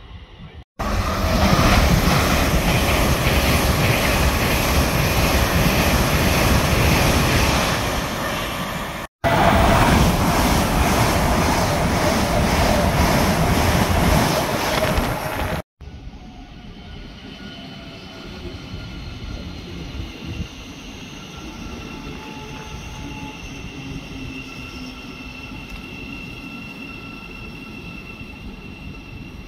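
LNER Azuma high-speed train passing at speed along the platform: a loud rush of wheel and air noise lasting about fifteen seconds, broken by two abrupt cuts. It then drops to a much quieter steady electrical whine from a Great Northern Class 717 electric unit moving slowly at the platform.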